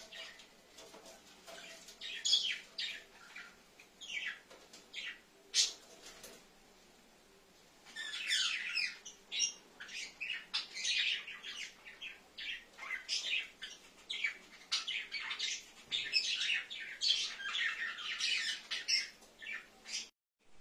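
Cockatiels in a cage calling with short, sharp chirps and squawks, scattered at first, then a brief lull about a third of the way in, followed by dense, overlapping calling.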